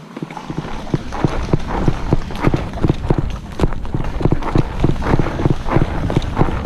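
Running footsteps on hard dirt, about three to four heavy steps a second, starting about half a second in, with wind rumbling on the body-worn microphone as the player moves.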